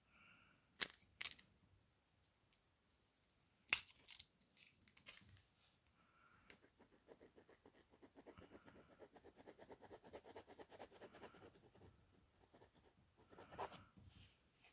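A few sharp clicks in the first seconds, then a pen scratching on sketchbook paper in rapid back-and-forth shading strokes for several seconds.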